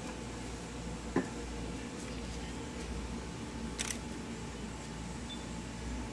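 Steady low background hum of a small room, with a short click about a second in and a brief scrape or rustle near four seconds.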